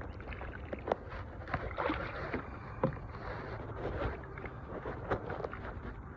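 Water sloshing and lapping, with scattered light knocks and clicks, while a big catfish is played on ultralight gear.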